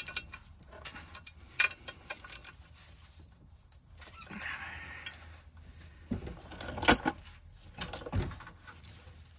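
Hand ratchet with a Torx socket clicking and metal tools clinking against the clutch pressure plate as its bolts are tightened down: scattered sharp clicks and clinks, with a louder knock about seven seconds in.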